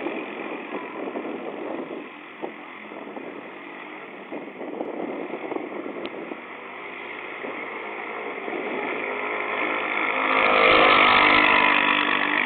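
Dune buggy engine running, growing louder over the last few seconds with a low rumble coming in.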